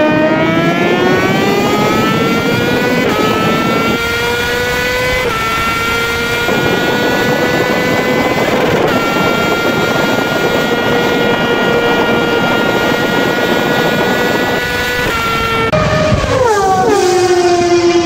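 Suzuki GSX-R1000 inline-four engine under hard acceleration. The revs climb with short dips at gear changes, then hold high and steady for about ten seconds, and fall away in steps near the end as it slows.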